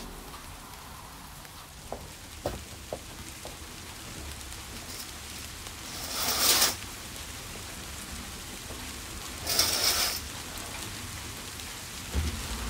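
Curtains swished along their rail twice, about three seconds apart, each a short hiss, over a steady background hiss of rain. A few soft knocks come about two to three seconds in.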